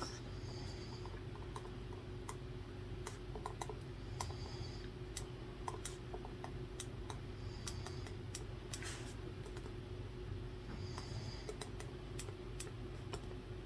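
Sparse, irregular light clicks and taps of desk study work, over a steady low hum. A faint, short, high whistle comes back about every three and a half seconds.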